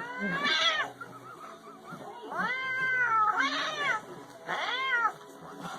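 A cat meowing: four drawn-out meows, each rising and then falling in pitch.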